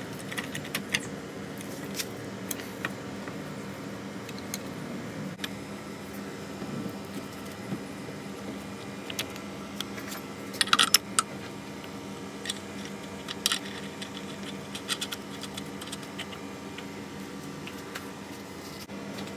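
Light metallic clinks and taps, with a louder cluster of clinks about eleven seconds in, over a steady low hum.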